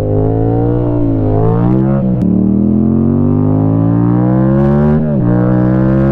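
2016 Yamaha FZ-07's parallel-twin engine accelerating hard through the gears. The front wheel is up in a wheelie at the start. The engine pitch climbs, then drops at upshifts about one, two and five seconds in, and holds steadier near the end.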